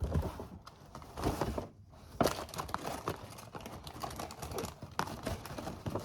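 Rustling and crinkling of packaging with many small clicks and taps as makeup samples and their boxes are handled and unpacked.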